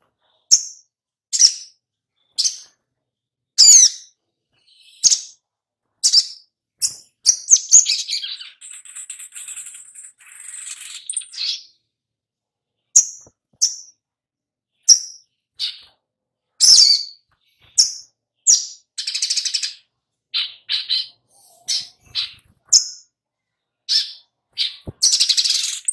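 Caged male sunbird calling: short, sharp, high chips roughly once a second, with rapid twittering runs about eight seconds in, around nineteen seconds and near the end.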